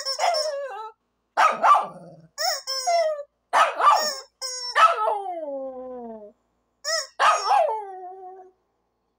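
A small dog barking aggressively at a rubber screaming-chicken toy, which is squeezed between the barks and gives several long squawks, one sliding down in pitch.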